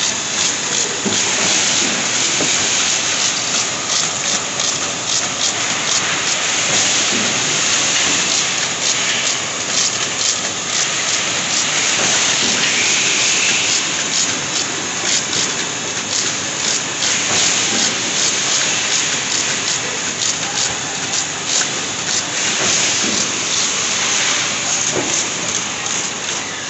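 Bottle-labelling machine running: a steady, loud hiss with a dense, irregular light clatter of many small clicks.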